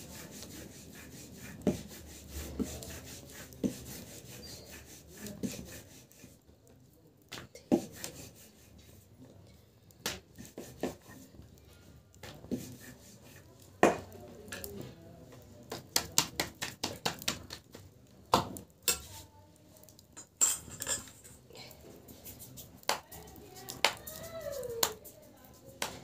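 Irregular sharp clicks and taps from chapati being made by hand at an open wood fire, few at first and coming thick and fast in the second half.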